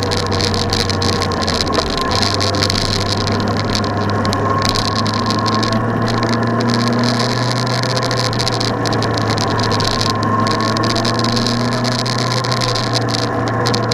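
A steady low mechanical drone with a constant wash of noise over it.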